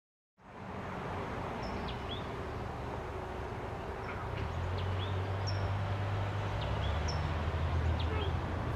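Outdoor ambience at a trailhead parking lot: small birds give short high chirps every second or so over a steady low rumble, which grows louder about halfway through. The sound fades in at the start.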